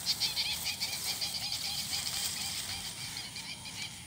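An animal calling in a fast run of repeated short calls, about five a second, that fades away near the end.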